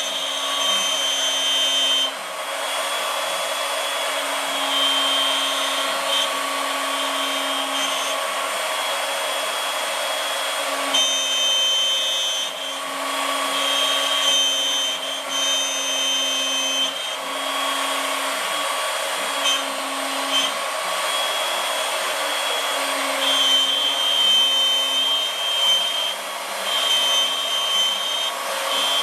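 ShopBot CNC router running, a steady motor noise with several whining tones that start and stop every second or two.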